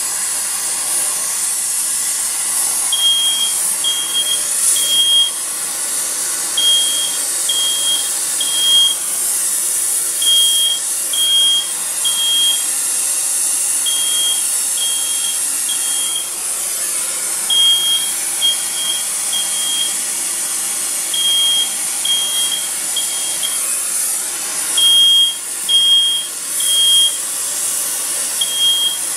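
Oxy-acetylene torch flame hissing steadily on a copper pipe joint being brazed with 15% silver solder. From about three seconds in, a smoke alarm beeps in groups of three, a group roughly every three and a half seconds; the beeps are the loudest sound.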